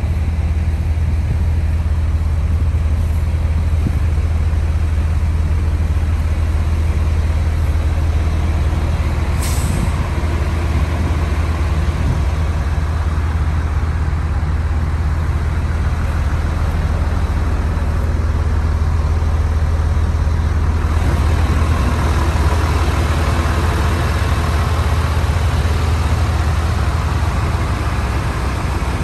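2002 Freightliner FL70 rollback truck's Cummins diesel engine idling steadily with a deep, even hum. A brief hiss comes about nine seconds in, and the engine sound grows fuller from about 21 seconds on.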